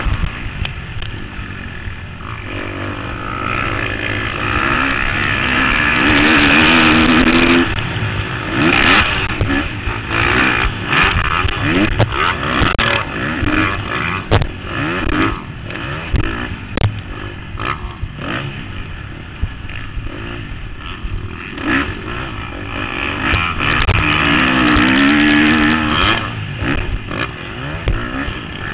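2013 KTM 250 SX-F four-stroke single-cylinder dirt bike racing on a motocross track: the engine revs up and down through the gears, loudest on two long full-throttle pulls. Sharp knocks and clatter break in throughout.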